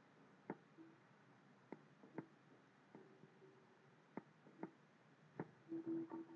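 Near silence broken by a handful of faint, sharp, scattered clicks from drawing at a computer, with faint music starting near the end.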